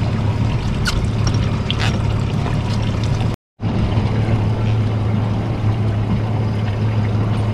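A steady low hum under running, trickling water. The sound drops out completely for a moment about halfway through.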